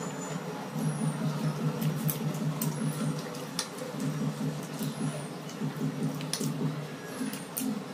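Close-up chewing and mouth sounds of people eating Maggi noodles by hand, with small wet squelches and clicks at irregular intervals over a steady low hum.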